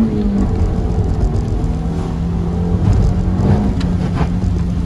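Sixth-generation Honda Civic's 1.4 iS four-cylinder engine pulling the car along. Its note drops just after the start, holds fairly steady, then briefly rises and falls again late on.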